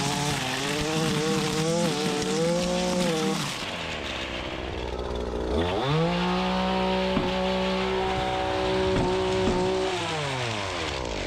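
Gas brush trimmer's two-stroke engine running at full throttle with the string head whipping through grass. It drops toward idle about a third of the way in, revs back up and holds steady, then winds down near the end. The trimmer line has retracted into the head.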